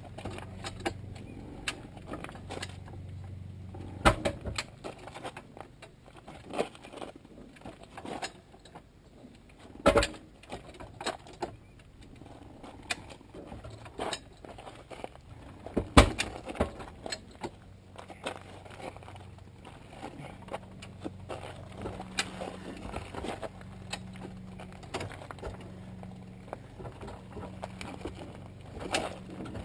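Metal clinks, rattles and knocks of a chain and farm jack being handled while setting up to push a tractor tire's bead off the wheel, with several sharper knocks about 4, 10 and 16 seconds in, over a low steady hum.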